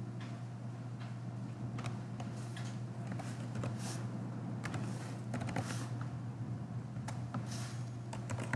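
Computer keyboard keys being typed, irregular scattered clicks a few per second, over a steady low hum.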